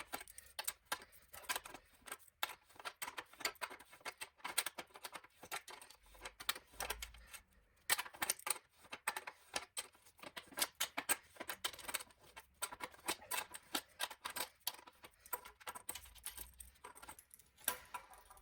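Irregular light metallic clicks and taps from hand tools and loose bicycle bearing parts while a lock ring and bearing assembly are unscrewed and taken apart by hand.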